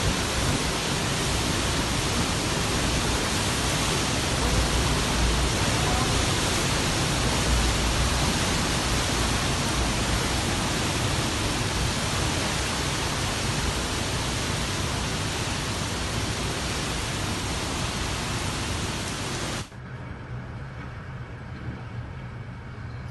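Typhoon-force wind and driving rain, a loud, steady rush of noise. About twenty seconds in it cuts off abruptly to a quieter, lower rumble.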